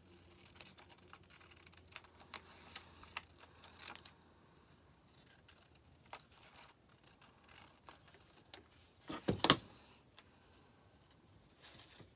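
Scissors snipping through thin printed decoupage paper: scattered light snips and clicks, with a brief louder clatter about nine seconds in.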